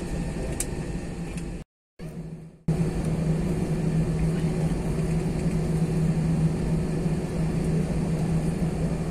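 Airbus A320 cabin noise from a window seat over the wing: the CFM56 engines running steadily with a low hum while the jet is on the ground. Just under two seconds in the sound cuts out briefly and returns slightly louder.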